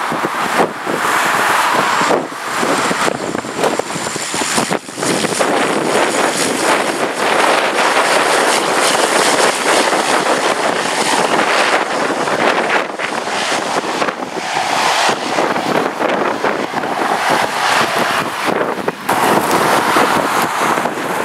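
A Cessna 208 Grand Caravan single-engine turboprop touching down and rolling out along the runway, heavily overlaid by gusty wind buffeting the microphone.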